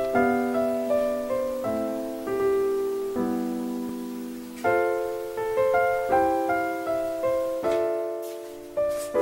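Background piano music: gentle chords played at a slow, even pace.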